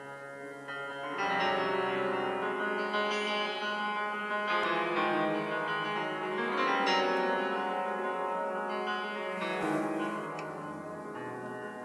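Cello and piano playing contemporary classical chamber music: soft, sustained low tones at first, then growing louder about a second in, with repeated struck piano notes and chords over held cello tones.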